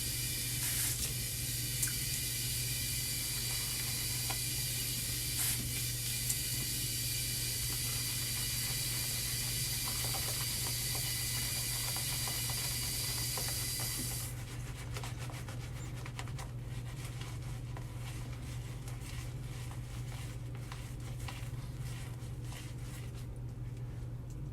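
Water running steadily from a tap into a sink, shut off suddenly about fourteen seconds in; after that only faint light clicks remain. A steady low hum runs underneath throughout.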